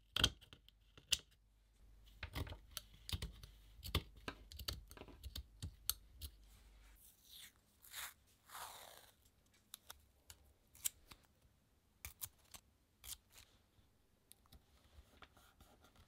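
Large metal scissors snipping through fabric in a series of sharp clicks, then green paper tape pulled off its roll and torn with a few longer rasping sounds, followed by light clicks and taps as the torn tape pieces are pressed onto a painted paper page.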